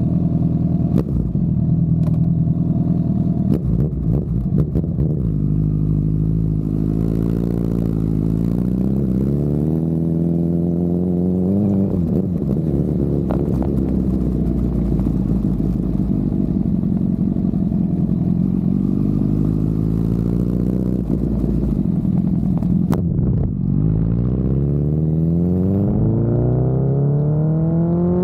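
Honda CB1000R's inline-four engine under way, rising in pitch as it accelerates, with the pitch dropping back at gear changes; two long climbs, one in the middle and one near the end. A few sharp clicks in the first few seconds.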